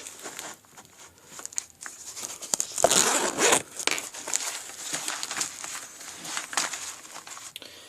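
Zipper on a Condor nylon pouch being pulled open, one long rasp a little under three seconds in, with rustling and small clicks as the contents are handled.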